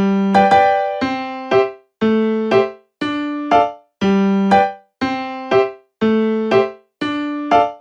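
Background music: an electric-piano-like keyboard playing a simple repeating pattern of struck notes, roughly one phrase per second, each note decaying.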